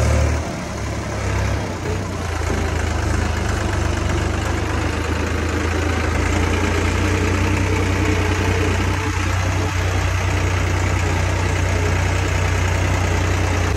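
Tractor diesel engine running steadily with a deep, even hum as the tractor drives along, its PTO out of gear.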